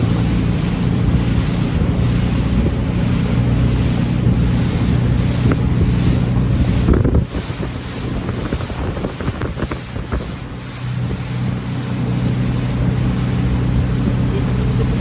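Tour boat's engine running steadily, with wind on the microphone and water noise. The engine sound drops about halfway through and picks up again a few seconds later.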